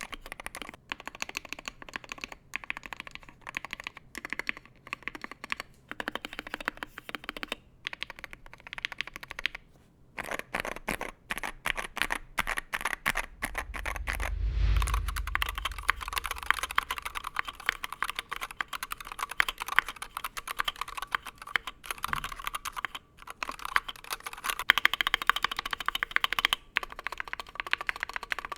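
Continuous typing on a Wooting 60HE keyboard with magnetic Hall-effect switches, first in a Tofu60 aluminum case and then, after a brief low whoosh about halfway through, in a Tofu60 walnut O-ring-mount case.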